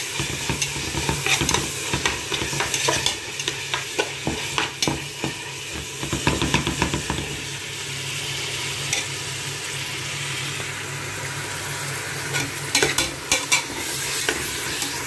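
Sliced onions sizzling in hot oil in a pan while a spoon scrapes and knocks against the pan as they are stirred; they are being sautéed with a little salt to soften them faster. The stirring stops for a few seconds in the middle, leaving only the sizzle, then picks up again near the end.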